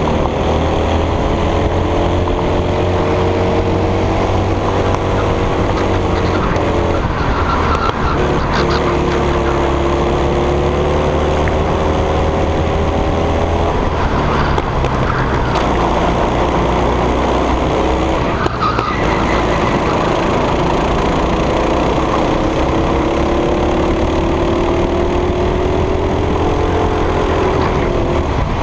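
Racing go-kart engine heard onboard at full race pace, its pitch climbing steadily and then dropping off several times as it revs up and eases back, over a constant low rumble.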